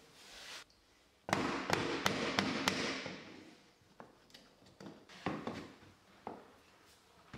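A claw hammer taps a wooden offcut block against the edge of a wood flooring plank to knock the plank tight into place. Five quick strikes come about a second and a half in, then a few lighter single knocks.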